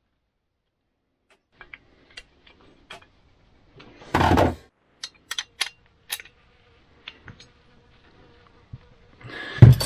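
Workbench handling noises: scattered clicks and taps of a steel plate and tools, a short loud clatter about four seconds in, and a heavy knock near the end. A faint steady hum runs under the middle part.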